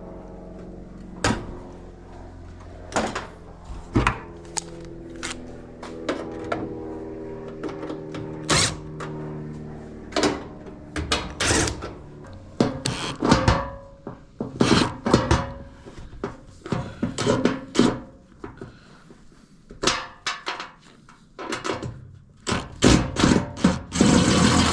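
Knocks, thunks and clicks of metal dryer cabinet panels and screws being handled as a dryer is taken apart by hand, coming irregularly and more often in the second half.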